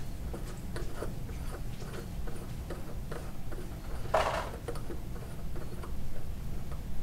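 Small clicks and taps of a Kangertech Subtank's metal and glass parts being handled and fitted together by hand, with one brief louder scraping rub about four seconds in, over a low steady hum.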